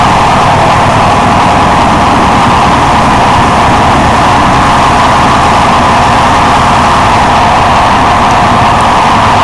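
Train running along the track, heard from the cab: a loud, steady running noise of the locomotive and its wheels on the rails, with a constant hum and no individual knocks.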